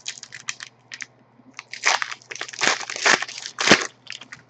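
Hockey card pack wrapper crinkling and crackling as it is torn open and handled, in a run of short rustling bursts, busiest in the second half.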